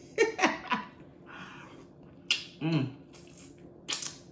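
A woman eating a sauce-dipped boiled shrimp: a short laugh, a wet sucking sound, a short falling hummed "mm", and two sharp mouth smacks, one about two seconds in and one near the end.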